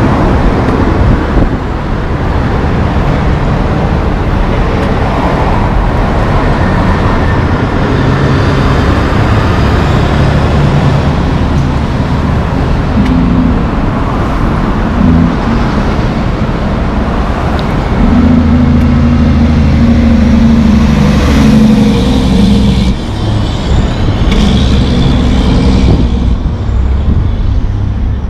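Traffic passing close on a city street: a semi-truck with a flatbed trailer rolls by at the start, then cars and heavy trucks go past. Engine rumble runs throughout, with an engine note that steps up and down in pitch in the second half.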